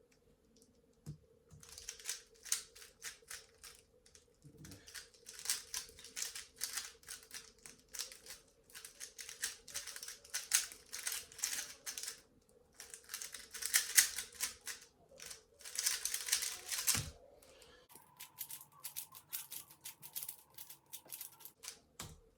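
Mofang Jiaoshi MF3RS2 non-magnetic 3x3 speedcube being turned fast during a speedsolve: rapid runs of clicking layer turns broken by brief pauses, with lighter, sparser turning near the end.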